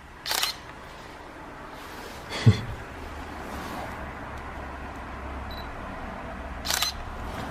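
Digital SLR camera shutter firing three times, each a short mechanical double click, the second one loudest. A faint low hum sits underneath.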